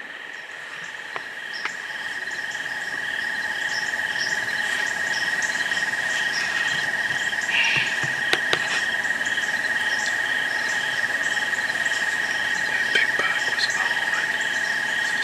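Insect chorus of crickets: a steady high trill with shorter chirps over it, and a couple of sharp clicks about eight seconds in.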